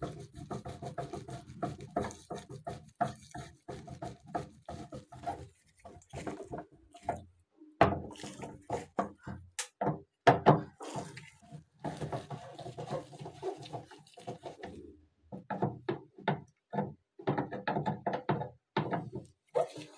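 A screwdriver working in the plastic hinge and spring assembly of a washing machine lid: a run of short clicks, knocks and scrapes of metal on plastic, several a second, with a few brief pauses.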